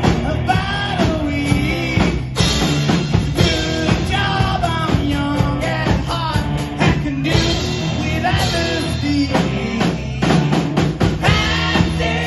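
Live rock band playing: a lead vocalist singing over electric guitars, bass guitar and a drum kit.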